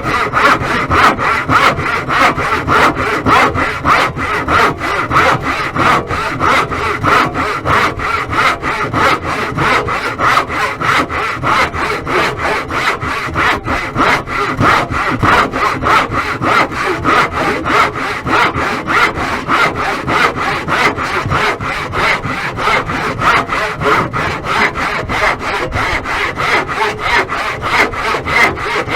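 Hacksaw cutting in a steady run of even back-and-forth strokes, kept up without a break.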